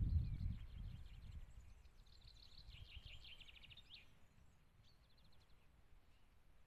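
A small songbird sings a fast trill of high notes that steps down in pitch and ends with a short upward flick, followed about a second later by a shorter, higher trill. A low rumble fades away in the first second.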